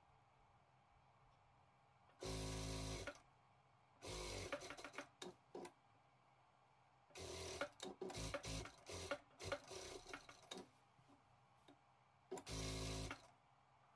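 Industrial sewing machine running in two short bursts of about a second each, stitching fleece fabric: one about two seconds in and one near the end. Between them the fabric rustles with scattered small clicks as it is handled and turned.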